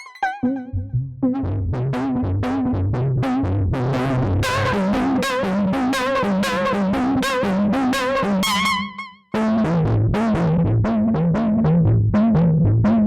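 UJAM Usynth Pixel software synthesizer playing a retro game-console (chiptune-style) pattern: bleepy lead notes with a wavering pitch over a bouncing bass line. It cuts out briefly about nine seconds in, then starts again.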